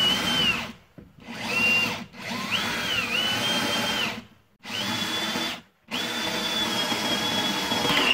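Power drill boring a hole through a steel plate, run in five bursts with short pauses between. Its motor whine climbs in pitch each time it spins up, and the last run, near the end, is the longest.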